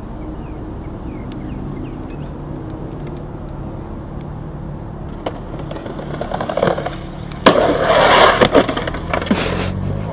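Skateboard riding down a steep concrete hubba ledge: a click and wheels rolling, then a loud scraping grind lasting about two seconds, with a few sharp knocks near the end. A steady low hum runs underneath before the trick.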